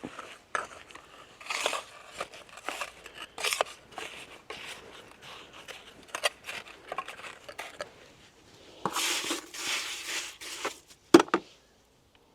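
Stones and grit being handled in a wall cavity: irregular scraping and crunching of stone on stone, with one sharp stone knock near the end.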